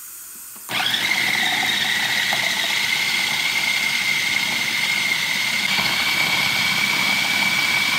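Walita food processor switched on about a second in, its motor then running steadily at speed with a high whine while it blends cooked yam and frozen fruit into a cream.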